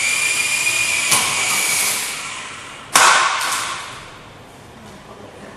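Small helicopter's electric rotor motor whining at a steady high pitch, then fading out about two seconds in as it spins down. A sharp knock comes about a second in, and a louder sudden knock about three seconds in.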